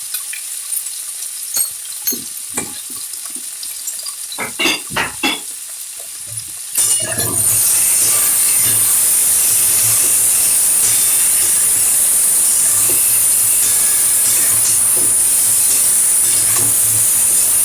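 Chopped vegetables frying in oil in a pan, with a spatula knocking and scraping as they are stirred. About seven seconds in, the sizzling turns suddenly louder and then stays steady.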